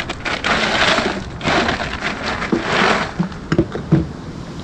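Hands digging through ice cubes and packed items in a plastic cooler: crunching and shuffling in three bursts, then a couple of sharp knocks near the end as a bottle is lifted out.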